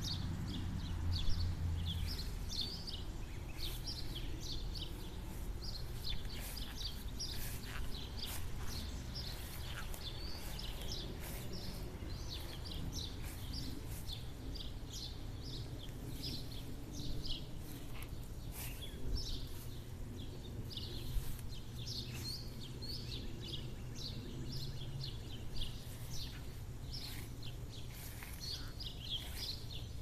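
Small songbirds chirping and twittering busily, many short high calls overlapping, over a steady low rumble with a few faint clicks.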